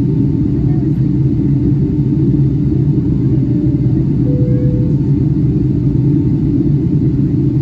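Steady low rumble of a Boeing 757-300's engines and airflow, heard from inside the economy cabin in flight.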